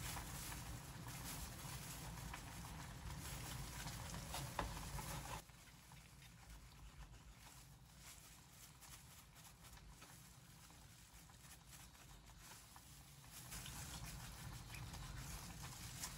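Kitchen knife slicing through a block of braised pork belly on a cutting board: soft cutting sounds with small taps of the blade on the board, quieter for several seconds in the middle.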